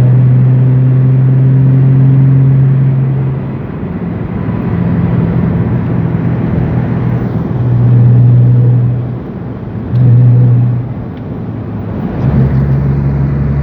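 Car cruising at about 60 mph: a loud, steady low drone of road and wind noise that dips and swells a few times, with a deeper rumble joining near the end.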